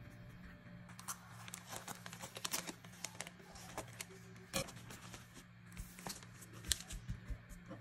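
Plastic zip-top bag crinkling and rustling as it is cut with scissors and pressed flat on a countertop, with many irregular sharp crackles and snips.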